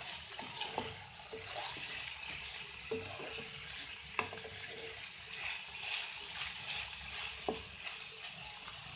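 Chicken, small onions and carrot sticks sizzling in oil in a nonstick pan while a spatula stirs them, with a few sharp knocks of the spatula against the pan.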